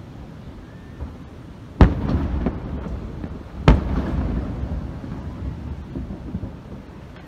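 Two loud aerial firework shell bursts about two seconds apart. Each is followed by a long low rumble, with a few smaller pops after the first.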